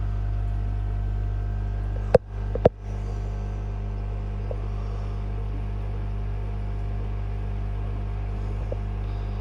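Steady low hum of fishroom equipment, with two sharp clicks about two seconds in, half a second apart.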